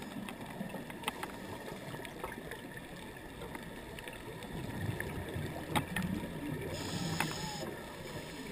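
Underwater sound of a scuba diver breathing through a regulator: a short hissing inhale about seven seconds in over the low bubbling rumble of exhaled air, with scattered sharp clicks.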